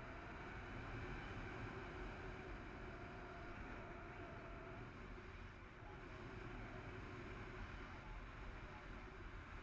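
Steady rush of airflow over a paraglider pilot's camera microphone in flight, with low wind buffeting.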